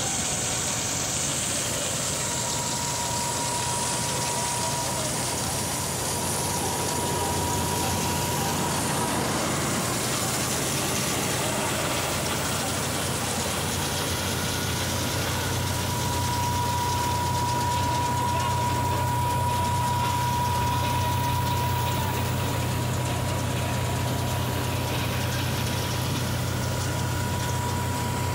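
John Deere 5310 tractor's three-cylinder diesel running steadily under load, driving a tractor-mounted combine harvester as it threshes and unloads grain. The sound is a constant low hum with a thin high whine that fades in and out.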